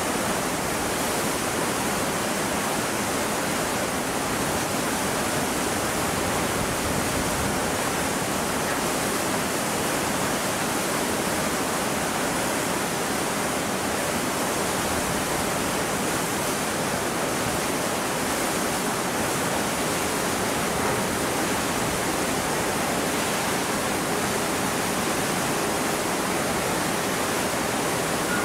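Steady, even rushing noise with no tone, rhythm or separate events, unchanging throughout.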